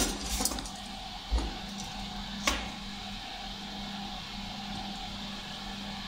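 Tools handled on a workbench as the soldering iron and solder are picked up: a sharp clink at the start with a few lighter clicks, a dull knock over a second in and another clink about two and a half seconds in, over a steady low hum.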